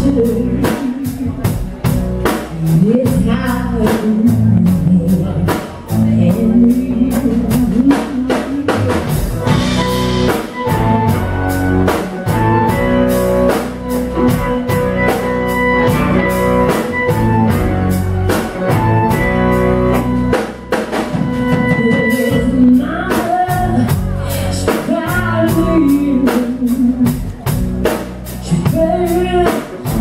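A live band playing with drum kit, electric bass, guitar and baritone saxophone, with a woman singing lead. Through the middle the voice drops out for a harmonica solo with held notes, and the singing comes back near the end.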